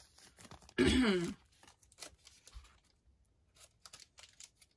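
Small plastic zip-lock bags crinkling and crackling faintly as they are handled, with a short hummed vocal sound about a second in.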